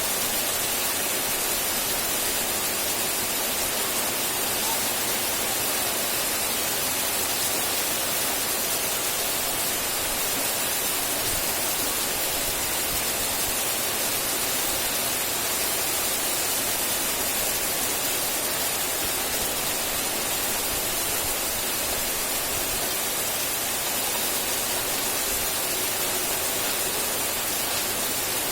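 Steady rain, an even unbroken hiss with no separate drops standing out and no change in loudness.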